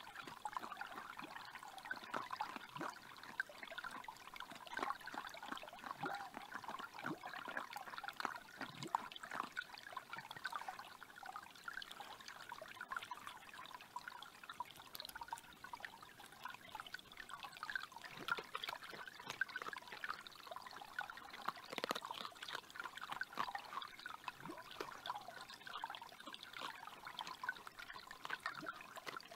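Small forest creek trickling and babbling steadily over stones.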